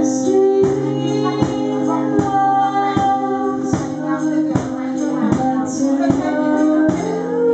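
Live acoustic band music: strummed acoustic guitar chords with a tambourine marking a steady beat a little over once a second, and a singing voice over them.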